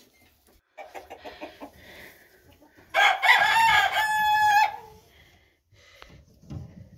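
Chickens clucking, then about three seconds in a rooster crows loudly for nearly two seconds, the crow ending on a long held note.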